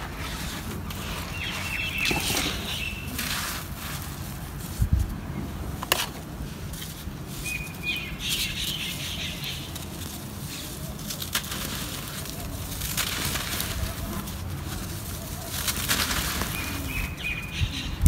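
Hands scooping and rubbing dry, powdery red dirt, the soil rustling and crunching as it crumbles through the fingers. A few short bird chirps sound three times in the background.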